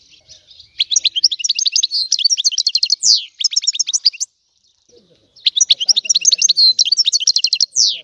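European goldfinch singing: two runs of rapid, high, chattering notes, each about three seconds long and each ending in a quick downward sweep, separated by a pause of about a second.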